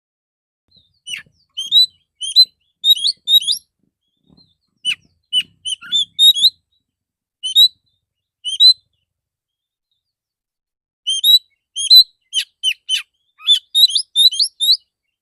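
Male oriental magpie-robin (kacer) singing in three bursts of rapid, short, clear notes, some sweeping sharply down in pitch: the rapid 'tembakan' phrases that kacer keepers prize.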